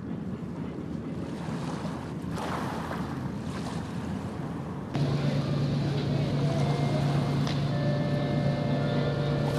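Wind and harbour ambience, then about halfway through the sound steps up to a louder steady low hum from the moored passenger ship's running machinery, with a few faint steady higher tones over it.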